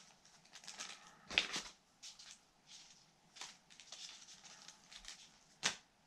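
Crinkling and rustling of a small plastic bag of kendama strings being handled, with a few louder crackles about a second and a half in and again near the end.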